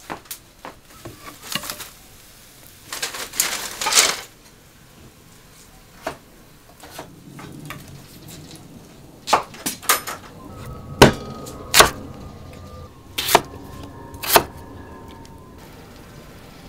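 Intermittent knocks and clatter of cooking work at a wood-fired stove and a kitchen counter: a crackly rustle about three to four seconds in, then six loud knocks in the second half, a few leaving a short metallic ring.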